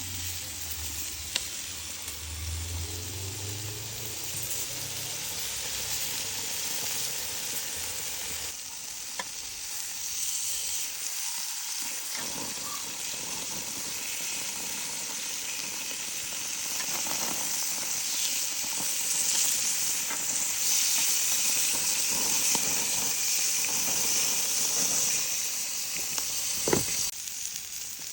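Chicken inasal sizzling as it cooks, a steady hiss that grows louder in the second half, with a few sharp clicks.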